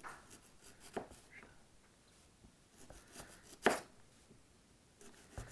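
Pocketknife blade cutting thin slices from a hard apple: a few separate crisp cuts, the loudest about three and a half seconds in.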